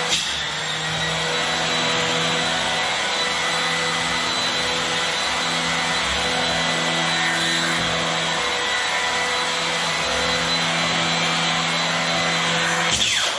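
Vacuum cleaner running steadily on carpet, a motor hum with a high whine, its tone shifting briefly near the end.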